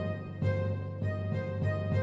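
Instrumental music: a melody of held notes that change about twice a second over a low, pulsing bass.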